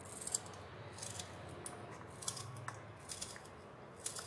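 Knife cutting through crisp, peeled watermelon rind into small cubes: a run of short crunchy cuts, irregular, about two a second.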